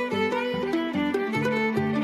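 Instrumental music: a quick stepping melody over a held low drone note, with a steady bass beat about two and a half times a second.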